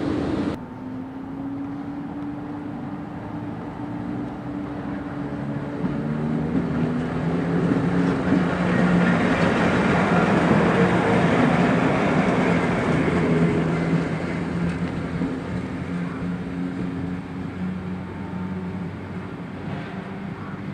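Electric locomotive passing through a station, giving a steady hum with a few low tones that swells as it goes close by about ten seconds in, then fades away.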